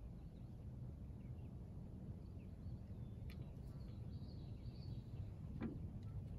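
Open-air lake ambience: a low, steady rumble under faint, high, scattered bird chirps, with a soft click about three seconds in and another near the end.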